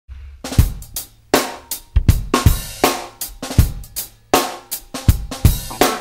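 Background music opening on a drum kit alone: kick drum, snare and cymbal hits in a loose pattern of sharp strikes.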